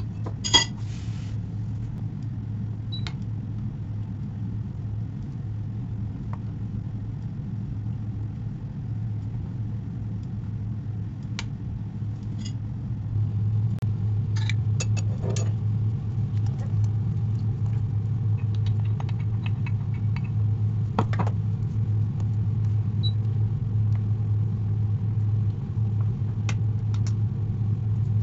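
A steady low hum that gets louder about halfway through, with a few scattered light clicks and clinks over it.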